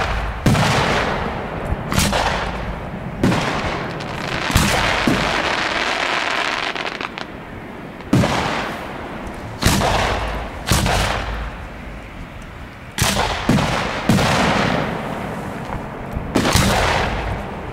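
Aerial fireworks shells bursting overhead, about a dozen sharp bangs spaced one to two seconds apart, each trailing off in a fading hiss. The hiss runs longest and densest from about four to seven seconds in.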